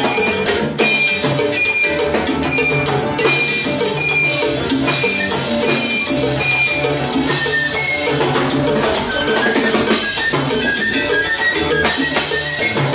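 Live salsa band playing: a flute solo of short, high, quick notes over bass guitar, drum kit and Latin percussion, with cymbal crashes several times.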